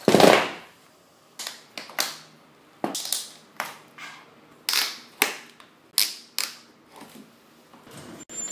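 Inline skates clacking on a wooden floor: about a dozen sharp, irregular knocks, the loudest at the very start.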